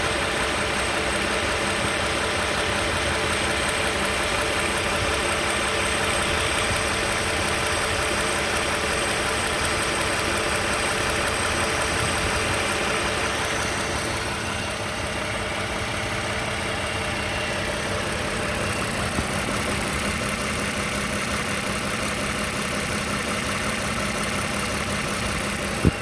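2015 Toyota Sienna SE's 3.5-litre V6 running with a rattle that sounds like a diesel engine, a noise the owner cannot place. It eases slightly a little past halfway.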